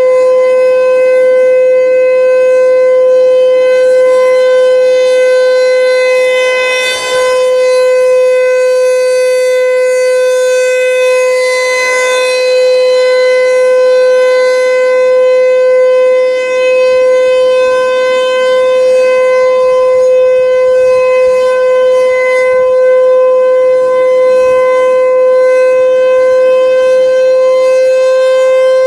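American Signal T-128 electromechanical rotating siren sounding a steady, unwavering tone, the full-alert signal. Its horn turns on its mount, so the loudness dips slightly now and then as the horn sweeps round.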